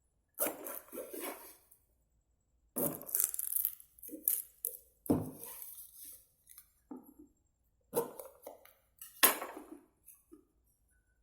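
Cardboard phone box being opened and handled: a series of irregular scrapes, rustles and knocks with short pauses between them, the loudest about nine seconds in.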